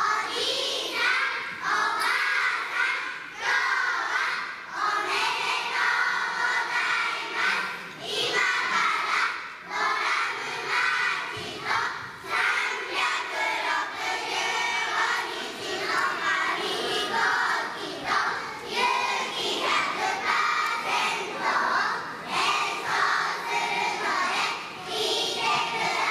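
A group of young nursery-school children singing a song together in unison.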